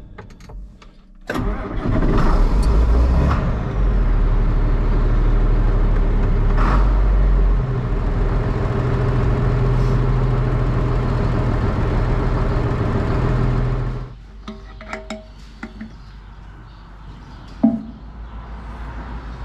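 John Deere diesel tractor engine cranked and started about a second in, then running steadily before being shut off suddenly near the end. It is run briefly after an oil change to circulate the fresh oil and fill the new filter before the level is rechecked. A few light knocks and clicks follow the shutdown.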